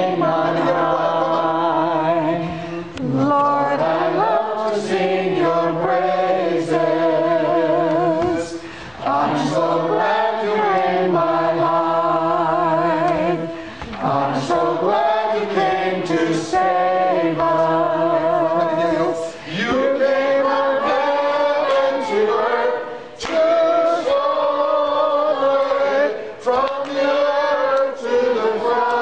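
A man singing a gospel song in long, held phrases with a wide vibrato, breaking for breath every few seconds.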